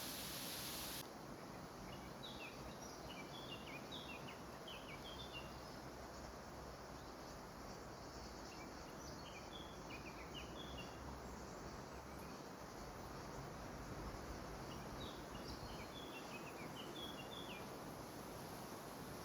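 A small songbird sings three short runs of quick, high chirps several seconds apart, over a steady rushing background noise.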